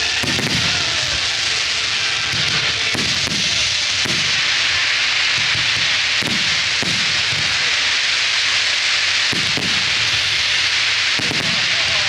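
Fireworks display: a dense, steady crackling hiss with low booms every second or two.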